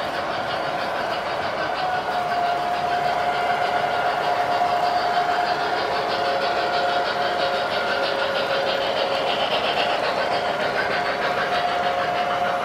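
Three-rail model trains running on a large layout: a steady rolling rumble of wheels on track with a fast light clicking, and a steady motor whine that comes in about two seconds in.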